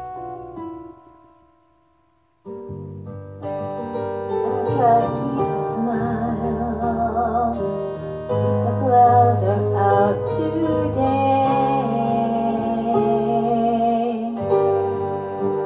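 A song. The instrumental backing fades away to a short silence about two seconds in, then starts again, and from about five seconds a voice sings over it with vibrato.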